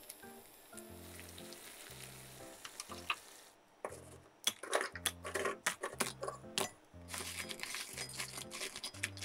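Hot sugar syrup sizzling softly in an enamelled cast-iron pot, then from about four seconds in, fried donut pieces are tossed in the syrup with a silicone spatula: a run of knocks, clicks and sticky scraping against the pot. Soft background music with a low bass line plays throughout.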